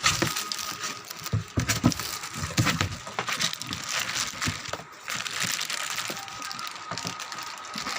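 Packaging and contents being handled during an unboxing: crinkling and rustling with many small, irregular clicks and knocks.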